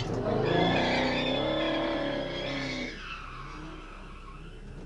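A car engine revving hard with tyres squealing as it speeds away in a burnout, leaving tyre smoke; the sound fades out about three seconds in.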